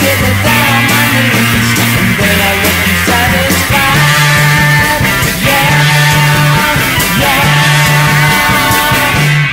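Loud music soundtrack with a drum beat and a stepping bass line.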